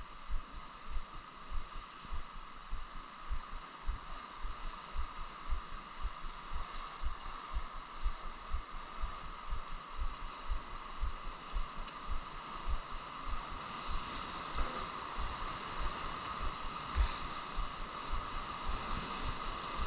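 Irregular low thumping, a few knocks a second, from strong wind and choppy water buffeting a small fishing boat and the microphone, over a steady hum.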